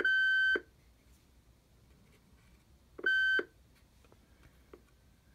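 Cobra 40 Plus CB radio's speaker giving a steady high-pitched squeal that cuts off about half a second in and sounds again briefly near the middle. It is a fault in the radio: it squeals even with no mic plugged in.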